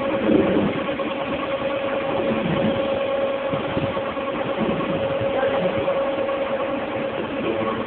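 Dewatering screw press running: a steady machine hum with a constant mid-pitched whine.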